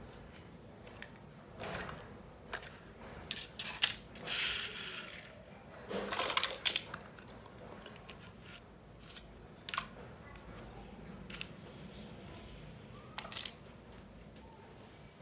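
Small plastic pieces of a miniature toy makeup set being handled and unpacked: scattered light clicks and taps, with a brief rustle about four seconds in and a quick run of clicks a couple of seconds later.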